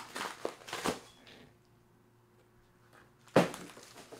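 Cardboard box and packaging being handled: a few short rustles and knocks in the first second, then quiet, then one sharp thump a little over three seconds in.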